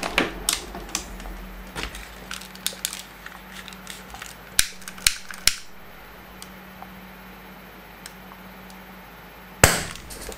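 Small hydrogen explosion: the hydrogen gas given off by a sealed lead-acid battery on charge is ignited at an open cell and goes off once with a sharp bang near the end. Scattered clicks and taps come before it.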